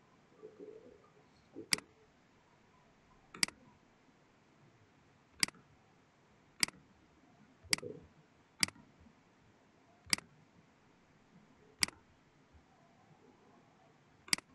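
Computer mouse button clicking: about nine sharp single clicks at irregular intervals of one to two and a half seconds.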